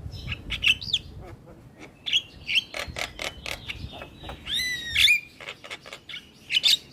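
Javan myna singing: a fast jumble of sharp clicks and short squeaky chirps, with one loud arching whistle about four and a half seconds in.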